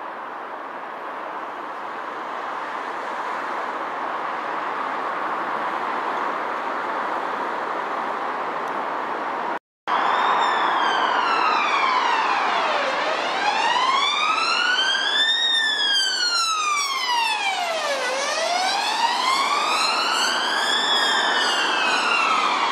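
A steady hiss of road traffic grows slowly louder. After a sudden cut, an ambulance siren wails, sweeping slowly up and down in pitch about every five seconds.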